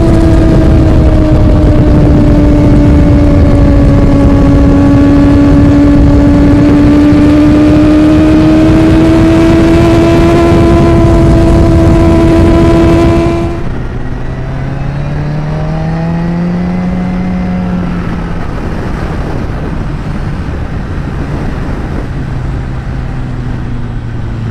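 Kawasaki ZX-10R inline-four sportbike running through an Akrapovič carbon exhaust while riding: a loud, steady high engine note with wind rush. About halfway through it drops suddenly to a quieter, lower note that briefly rises and then settles.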